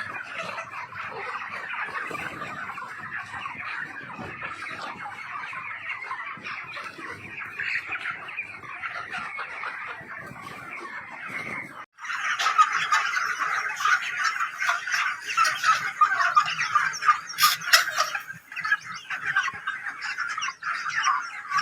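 Many broiler chicks peeping at once, a dense overlapping chorus of short high calls. It breaks off briefly about halfway through and comes back louder.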